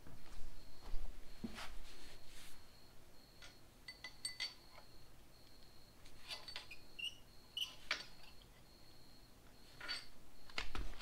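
Scattered light metal clinks and taps of motorcycle parts and hand tools being handled while the swingarm is being fitted, irregular and sharp, with small clusters of quick ticks.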